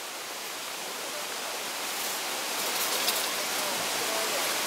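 Steady rushing of a rocky mountain stream flowing over stones.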